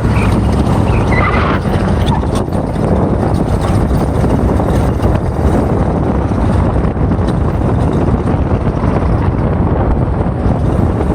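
Steady road and drivetrain noise from a moving 2007 Jeep Grand Cherokee WK, with a few short chirps about a second in. The chirping comes from a failing CV joint on the front drive shaft.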